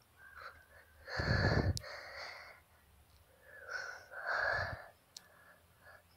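A person breathing heavily close to the microphone: two loud, noisy breaths, one about a second in and another near four seconds, with fainter breathing between.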